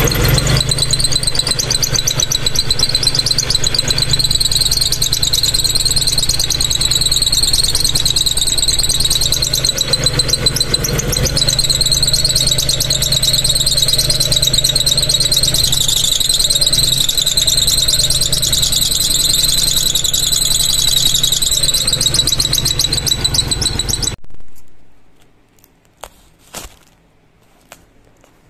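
Daihatsu Charade G100's three-cylinder engine running with a loud, steady high-pitched squeal over it that wavers slightly in pitch. Both stop abruptly about 24 seconds in.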